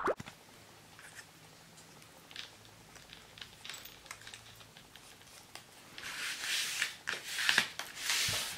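A few faint paper ticks and taps, then from about six seconds in three bursts of paper rustling as a white paper doily is handled.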